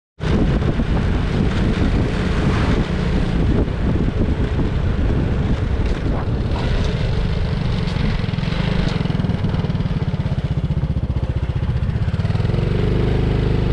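Honda Innova 125's small single-cylinder four-stroke engine running steadily as the motorbike is ridden on the road, under a dense, constant rush. It cuts in abruptly just after the start, and a steadier engine note comes through near the end.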